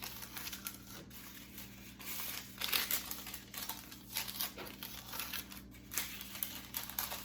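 Sheets of wax paper crinkling and rustling in irregular handling as they are stacked with dough discs between them.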